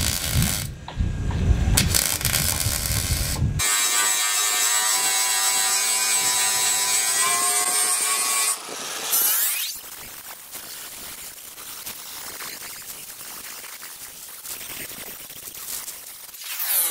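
Angle grinder dressing the welded seam of an aluminium pontoon tube. After a loud low rumble in the first few seconds, its motor whines steadily. About nine seconds in it drops to a quieter rasp, then spins back up near the end.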